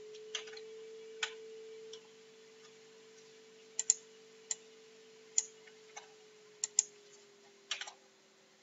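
Scattered sharp clicks of computer keys and mouse buttons, about a dozen at uneven spacing, as a terminal command is entered. Under them runs a steady low hum that fades near the end.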